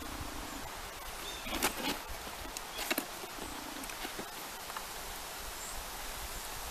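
Light rustling and crackling of dry birch bark and sinew being handled while the bark roll is tied, a few short crackles in the middle, over a steady outdoor background hiss. A short low pulsing sound comes twice, a few seconds apart.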